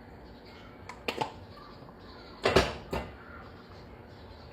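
Kitchen handling knocks: two quick light clicks about a second in, then a louder clatter of a pot, lid or utensil at about two and a half seconds, followed by a smaller knock.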